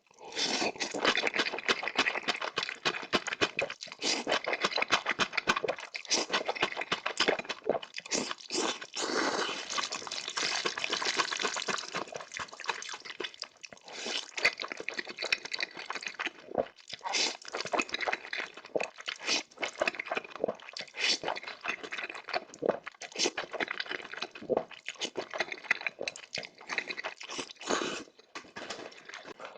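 Close-miked eating: noodles slurped and chewed, with wet smacking and crunching in quick irregular bursts.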